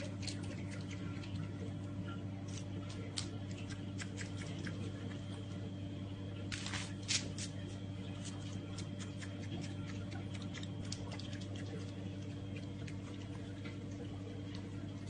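A steady low hum with many small scattered clicks and scratchy rustles, thickest in a short cluster about seven seconds in.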